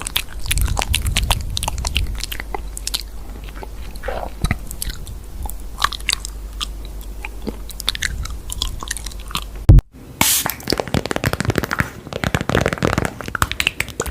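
Close-up crunching and chewing sounds made of many quick clicks and crackles, with a single loud pop about ten seconds in.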